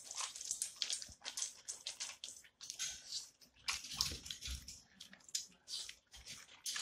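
An American bully dog licking and lapping at spilled salmon oil: a quick, irregular run of wet mouth-smacking licks.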